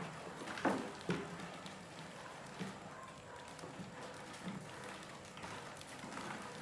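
Rats scrambling over a plastic bucket and its tipping lid: claws scrabbling, with scattered light taps and knocks.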